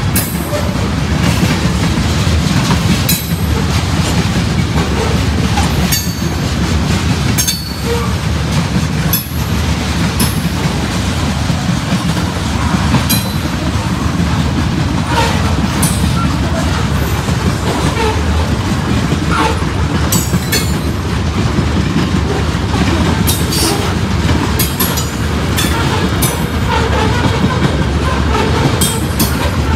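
Freight train cars rolling past close by: a steady rumble with frequent clacks of the wheels over the rail joints.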